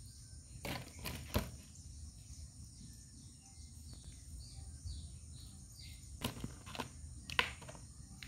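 Crickets chirping in a steady high drone, with a few sharp clicks and knocks from raw crab pieces being handled and set into a plastic colander, about a second in and again near the end.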